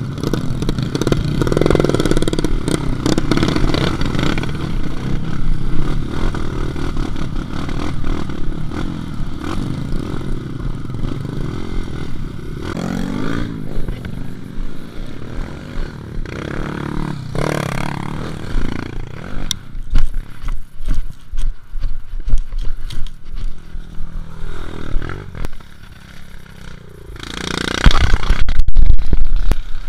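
Dirt bike engine running on a rough trail, revving up and dropping back several times, with rattles and knocks from the bike over the bumps; the loudest rev comes near the end.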